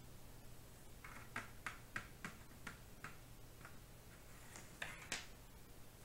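Faint light taps of a Monopoly token on the cardboard game board, about seven in a row at roughly three a second, as it is hopped along space by space, followed by two sharper clicks near the end.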